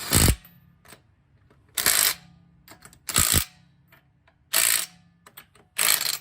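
Electric impact gun snugging the wheel's lug nuts, five short bursts of hammering about a second and a half apart, one per nut. The nuts are run down lightly, not torqued.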